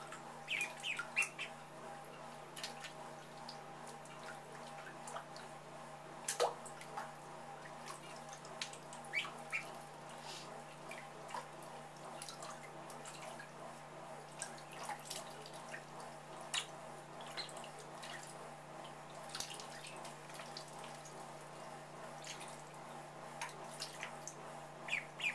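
Pekin ducklings paddling and dabbling in shallow bathtub water, making scattered small splashes and drip-like ticks. A few short high peeps come about a second in and again near the end, over a steady low hum.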